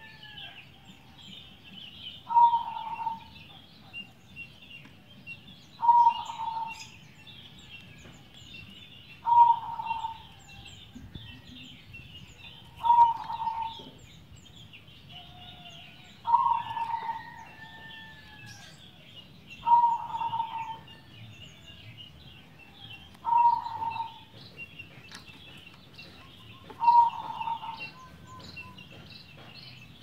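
Zebra dove (perkutut) cooing: a short call repeated at an even pace about every three and a half seconds, eight times in all. A steady high-pitched chirping runs behind it.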